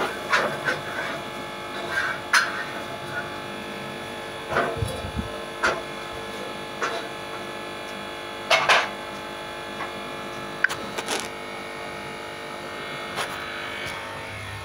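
Scattered light clicks and knocks of a metal utensil against a tawa (griddle) while a rice-flour roti cooks, the loudest a quick double knock past the middle, over a steady hum.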